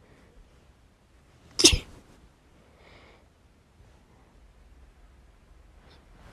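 A woman sneezing during a sneezing fit: one sharp, loud sneeze about one and a half seconds in, and the next sneeze starting right at the end.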